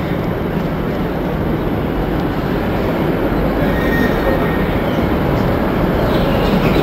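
Steady rumble of trains in a busy railway station, with a faint, brief high squeal about three and a half seconds in.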